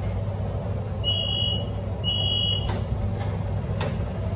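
Subway door warning beeps: two high, steady beeps about a second apart as the train's doors open at a station, over the train's steady low hum. A few sharp clicks follow.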